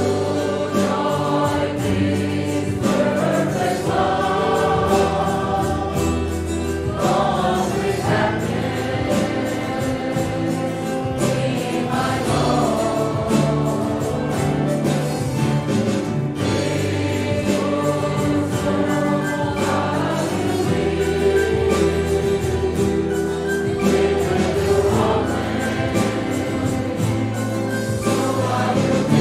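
Church congregation singing a hymn together as a choir, with musical accompaniment.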